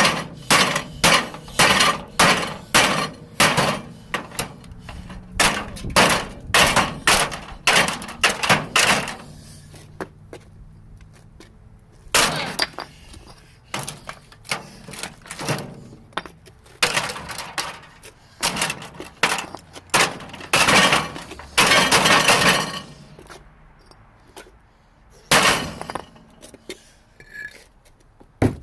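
A microwave oven being smashed with repeated heavy blows, with breaking and clattering. The blows come rapidly, about two a second, for roughly nine seconds. After a pause there are further bursts of strikes and crashing, and one last hit near the end.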